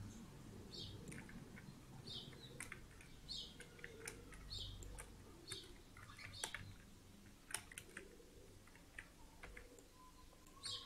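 Faint bird chirping, one short chirp about every second, with scattered sharp clicks of a computer mouse and keyboard.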